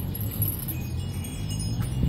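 Wind chimes ringing, several high tones sounding and overlapping, over a low rumble.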